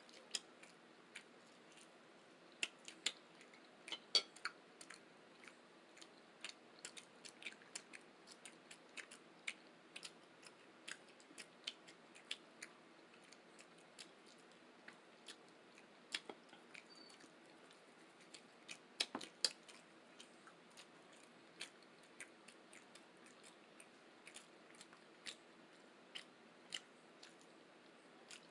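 Close-miked chewing: a stream of soft, irregular mouth clicks and smacks, with a few louder ones.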